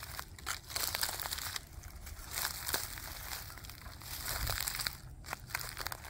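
Footsteps in sneakers crunching through dry fallen oak leaves, twigs and acorns: each step crumples the brittle leaves, with sharp little cracks and snaps among the crunching.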